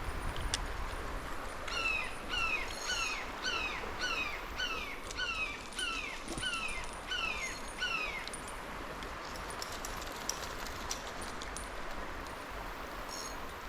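A bird calling a series of about a dozen sharp, downslurred notes, roughly two a second, that stops about eight seconds in.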